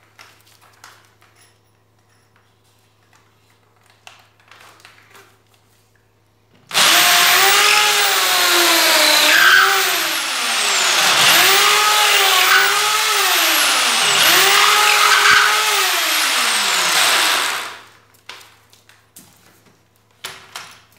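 Electric drill boring into a wooden chair frame for about ten seconds, starting about a third of the way in. Its motor pitch sags three times as the bit bites into the wood and then recovers. Light clicks of handling come before and after.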